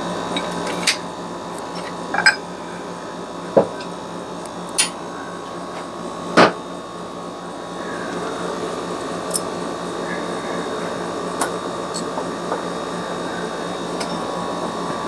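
Metal tools and parts clinking and knocking against each other about a dozen times, over a steady hum.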